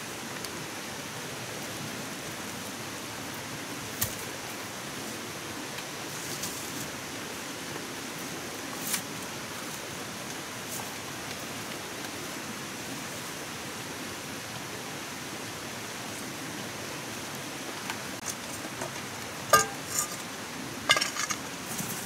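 Steady background hiss with a few sharp clinks of cookware: single clinks about four and nine seconds in, and a quick cluster of louder, briefly ringing clinks near the end.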